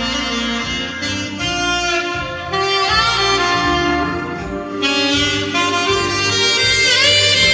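Saxophone playing a slow melody in long held notes over a karaoke backing track, with a bend in pitch near the end.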